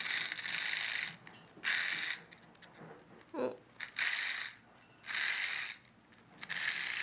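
Clockwork wind-up key of a plush toy mouse being turned. It makes five short bursts of ratchety clicking, one for each twist of the key.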